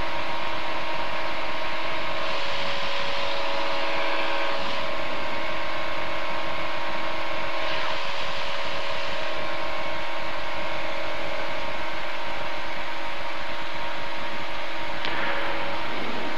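Aquila light aircraft's Rotax 912 four-cylinder engine and propeller running steadily at full takeoff power through liftoff and the first climb, heard inside the cockpit as an even, unbroken engine sound with a few steady tones.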